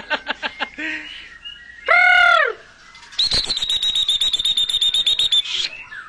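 Several caged songbirds singing loudly at once, straw-headed bulbuls among them. Quick repeated notes at first, then one loud rising-and-falling whistle about two seconds in, then a fast rattling trill lasting a couple of seconds.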